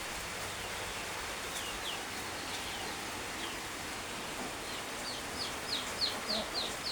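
Chicks peeping: short high falling peeps, a few scattered at first, then a quick steady run of about three a second from about five seconds in, over a steady hiss.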